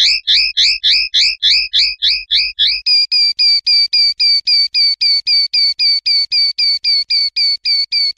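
Common linnet song: a fast, even run of repeated rising notes, about four a second, switching about three seconds in to a different repeated note that holds its pitch, kept up at the same pace.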